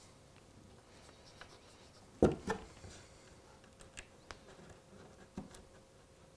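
Hand handling noises on a wooden model railway baseboard as a scraper is put down and a model railway point is laid into glue on foam track bed: a sharp double knock about two seconds in, then a few faint clicks and taps.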